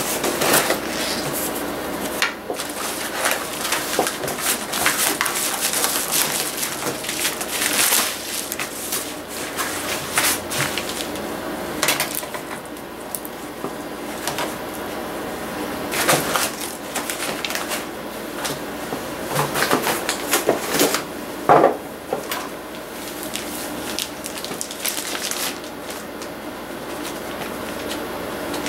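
Plastic packaging rustling and crackling, with cardboard being handled, as a replacement laptop LCD panel in a blue plastic bag is taken out of its box. Irregular knocks and crackles come throughout, with one sharp knock a little past two-thirds of the way in.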